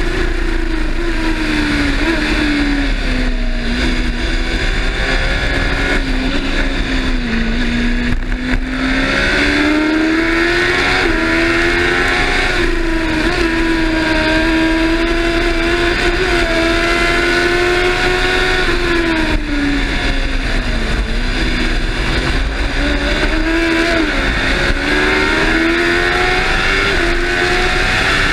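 Racing sidecar outfit's engine at race pace, heard onboard with wind rushing past. The engine note drops off and climbs back several times and holds a steady high pitch through the middle.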